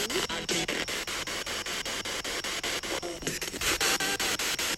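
SB7 spirit box sweeping through radio stations: a steady hiss of static chopped into rapid, evenly spaced pulses, with a few brief fragments of broadcast sound about three seconds in.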